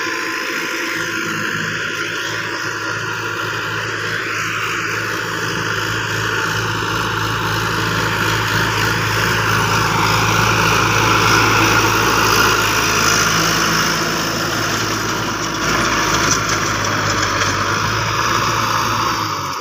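Tractor diesel engine running steadily as it pulls a rotary tiller through the soil, with a steady hum under a wide churning hiss. It grows louder toward the middle as the tractor comes close, then eases a little near the end.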